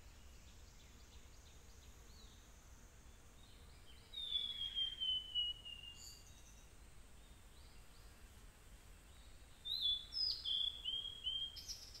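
Male blue-and-white flycatcher singing: about four seconds in, a clear whistle sliding downward, and near the end a second phrase of several short, falling whistled notes.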